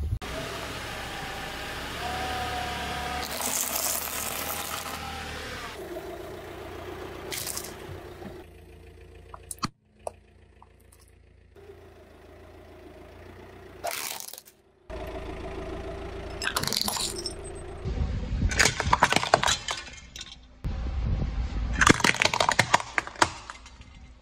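A car tyre rolling over and crushing a series of objects on concrete, in several short takes. Near the end, glazed ceramic figurines break under the tyre in dense clusters of sharp cracks and clinks, the loudest part.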